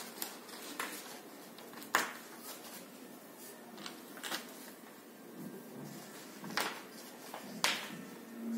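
Paper picture cutouts rustling as they are handled and pressed onto a wall board by hand, with a few sharp taps: the loudest about two seconds in and another near the end.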